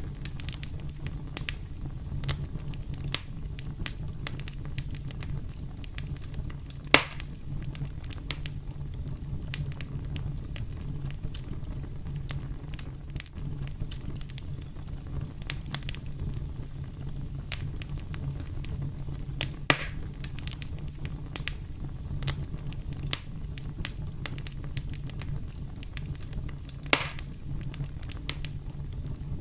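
Wood campfire crackling, with frequent small snaps over a steady low rumble and three louder pops, about seven, twenty and twenty-seven seconds in.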